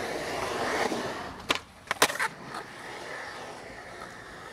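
Skateboard wheels rolling over concrete. A quick cluster of sharp clacks of the board hitting the ground comes about one and a half to two seconds in, the loudest just after two seconds, and then the rolling goes on.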